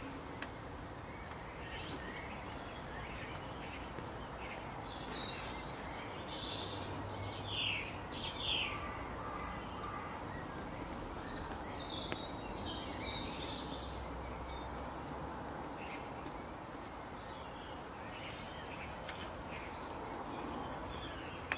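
Outdoor ambience: a steady low background hiss with many short, scattered bird chirps and calls, busiest in the middle.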